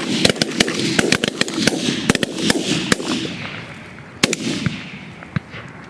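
A rapid volley of shotgun fire from several hunters shooting at a passing flock of ducks: more than a dozen overlapping shots in the first three seconds, then one more loud shot about four seconds in and a few fainter ones after.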